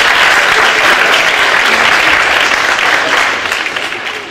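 Conference audience applauding in a large auditorium, the clapping dense and even, then tapering off near the end.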